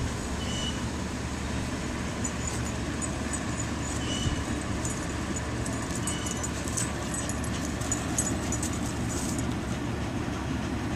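Steady low outdoor background rumble, with faint short high chirps scattered through it, more of them in the second half.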